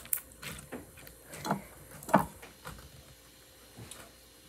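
Slime being squished and stretched in the hands, giving a few irregular small clicking pops in the first three seconds, then fainter.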